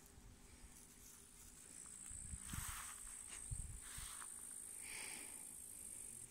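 A dog sniffing and digging at a hole in grassy soil: a few short rustling bursts between about two and four seconds in, over a steady high whine.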